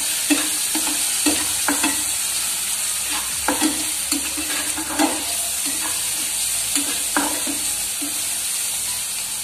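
Sliced onions, tomato and spices sizzling in hot oil in a frying pan while a steel spatula stirs them, scraping against the pan at irregular intervals.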